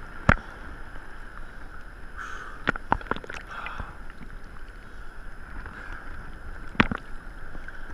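Sea water sloshing and lapping against a camera held at the surface, with sharp splashes hitting it: one just after the start, a few around three seconds in, and another near the end.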